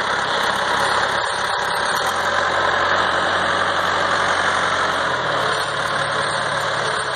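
The 70-horsepower diesel engine of a 1980 John Deere 2640 tractor running steadily at low speed, its pitch stepping up slightly about five seconds in.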